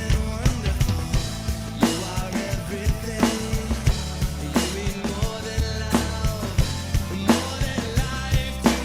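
Drum kit played along to a pop-rock worship song: kick drum and snare hits in a steady beat over the recorded band track, with bass and sustained melodic lines beneath.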